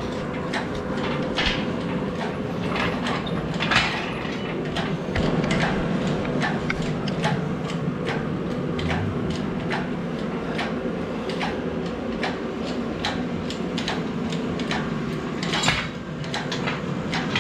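Irregular metallic clicks and knocks of hand tools working on an engine and transmission, over a steady low hum.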